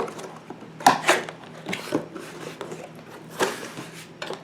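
Cardboard box being opened and its packed contents handled: a few sharp knocks and scrapes spread irregularly, the loudest about a second in and again past the three-second mark.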